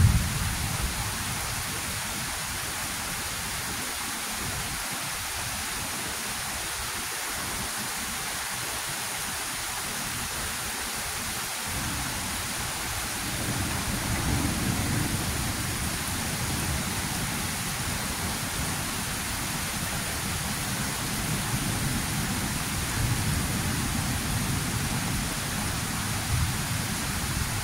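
Heavy rain falling steadily, with a rumble of thunder dying away at the start. Another long roll of thunder builds about halfway through and keeps rumbling, swelling twice.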